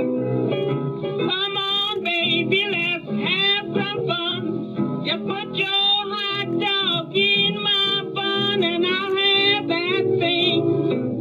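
A female blues singer sings with vibrato over piano and string bass on a 1936 78 rpm shellac record. The voice comes in about a second in. The sound is dull and lacks treble, as old 78 transfers do.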